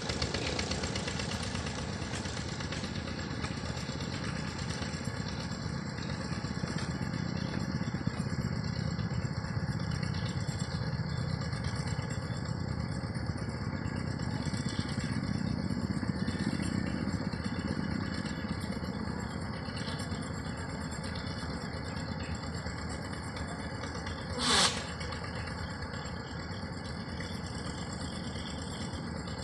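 An engine running steadily with a rattle. One short, sharp noise about three-quarters of the way through is the loudest moment.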